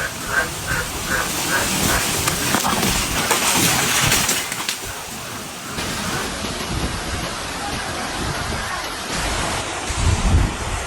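Cyclone wind and heavy rain: a steady rushing noise that changes abruptly several times as the footage cuts. A run of faint regular pips, about three a second, comes in the first two seconds, and a low thump comes near the end.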